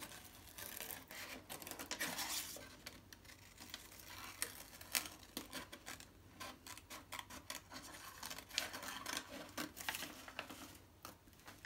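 Scissors cutting through paper with tissue-paper squares glued to it: a run of short, irregular snips with the paper rustling in between.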